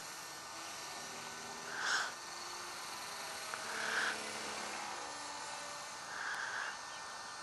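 T-Rex radio-controlled helicopter flying at a distance, a faint steady buzz of rotor and motor, swelling softly about every two seconds.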